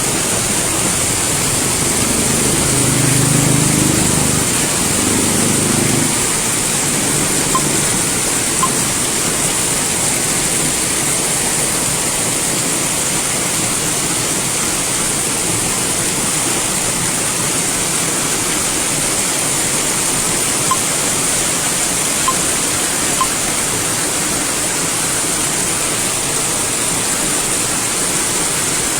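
Heavy thunderstorm rain pouring down in a steady, loud hiss. A low pitched hum rises over it for a few seconds about two seconds in.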